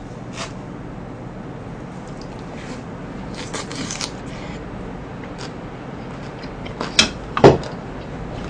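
Chewing a mouthful of fried cutlet and rice, with soft crackly crunching. About seven seconds in come two loud, short, sharp sounds half a second apart.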